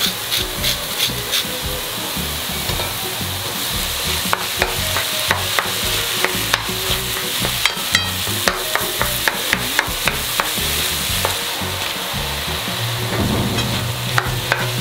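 Ground pork and beef frying with chopped onion, celery and carrot in a nonstick pan: a steady sizzle, with a wooden spatula stirring and tapping against the pan about twice a second through the middle of the stretch.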